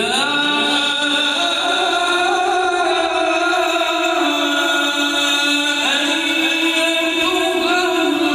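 Male Quran reciter chanting one long melodic phrase of tilawat. The voice is held on sustained notes and moves in a few slow steps of pitch.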